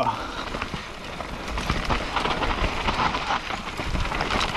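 Rockrider AM100S mountain bike riding down a dirt trail: tyres crackling over loose soil and stones with the bike rattling over the bumps, and wind on the helmet camera's microphone. It gets rougher and louder about a second and a half in.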